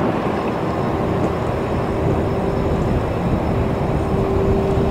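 Steady low engine rumble of dockside machinery, with a droning hum that grows louder in the last second or so.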